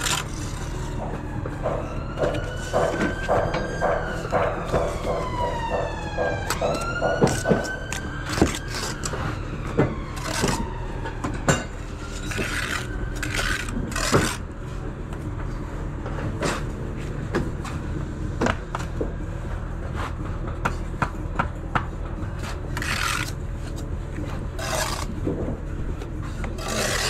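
Bricklayer's trowel scraping mortar and knocking bricks into place, in short sharp taps and rasping scrapes. A siren wails up and down for several seconds about two seconds in. A steady low hum runs underneath.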